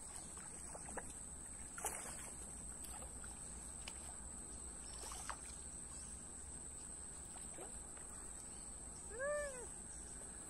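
Steady high-pitched drone of insects, with a few faint clicks scattered through it, and one short call that rises and falls in pitch about nine seconds in.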